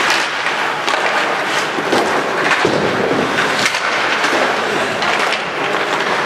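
Ice hockey in play: skate blades scraping across the ice and repeated sharp clacks of sticks and puck, over a steady din of arena noise.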